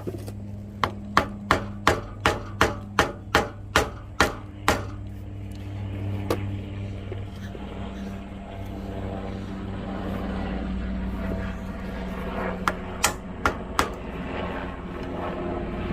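Sharp hammer taps: a quick run of about a dozen at roughly three a second, one more a little later, and a short run of four near the end, over a steady low hum.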